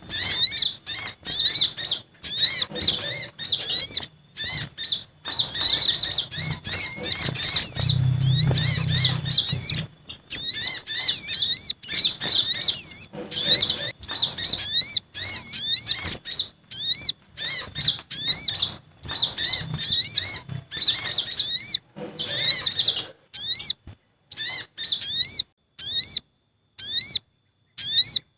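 Sunbirds calling excitedly, the sogon (sogok ontong) and konin (kolibri ninja) calls of a bird-lure recording: rapid bursts of short, high, rising-and-falling chirps, repeated over and over with brief pauses.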